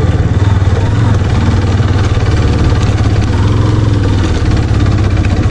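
Motorcycle engine running at low speed with a steady, rapidly pulsing low rumble as the bike is ridden slowly over a rough rocky track.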